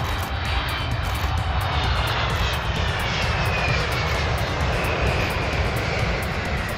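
Jet engines of an ANA Boeing 777-300 airliner as it lands: a steady rumble with a high whine that falls in pitch as the plane comes onto the runway and rolls past.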